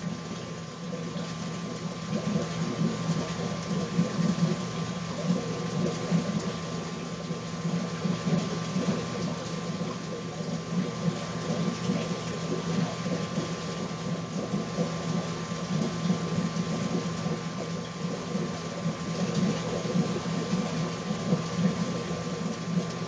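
Reef aquarium's pumps and water circulation running: a steady mechanical hum under a constant rushing water noise.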